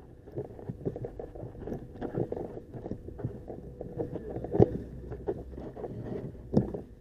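Footsteps and clothing rubbing against a body-worn camera's microphone while walking on a paved road: an uneven run of soft knocks and thumps. Two louder knocks come, one past the middle and one near the end.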